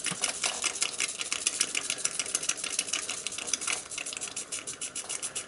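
Small single-cylinder oscillating steam engine on a spirit-fired copper boiler running freely, its exhaust beating rapidly and evenly. It is still priming a little, carrying some water through with the steam.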